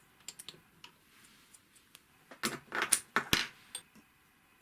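Small metal sewing-machine parts being handled: a few light clicks, then a short metallic clatter ending in a sharp click about three seconds in, as the bobbin case is taken out of the shuttle area.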